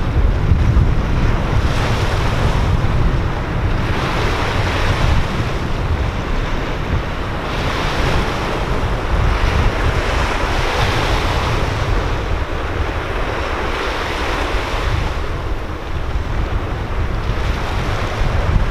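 Sea waves washing and breaking over shoreline rocks, the surf swelling and fading every few seconds, over a steady low rumble of wind buffeting the microphone.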